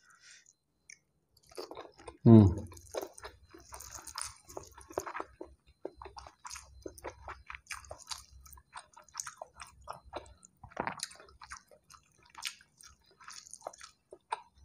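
Close-up chewing of a mouthful of rice and Padang curry, eaten by hand: a long string of small, irregular mouth clicks. About two seconds in there is one louder short sound that falls in pitch.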